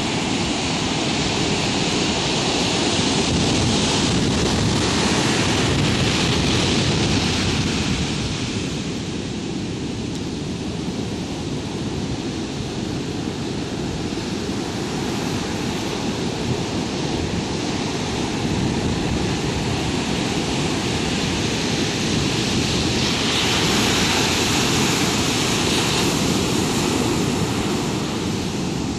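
Heavy surf: large waves breaking and whitewater rushing up the beach in a continuous roar of water. It swells louder twice, early on and again near the end, as bigger sets break.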